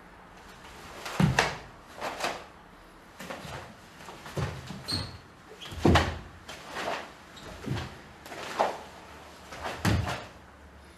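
Bare feet thudding, stamping and sliding on a wooden stage floor, with the cotton karate gi snapping on strikes, as a kata is performed: sharp irregular knocks about once a second, with a brief squeak of skin on the polished boards about five seconds in.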